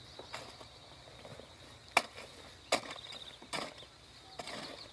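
Steel hoe blade striking and biting into the soil as planting holes are dug for cassava: several separate blows at irregular intervals, the loudest about two seconds in. Insects trill faintly and steadily behind.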